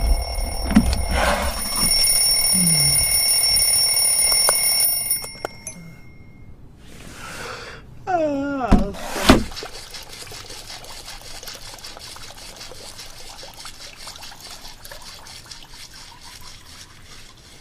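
Cartoon alarm clock ringing with a steady high-pitched tone for about five seconds, then cutting off. About halfway through comes a falling, wobbling sound effect ending in a sharp hit, followed by a faint steady trickle-like hiss.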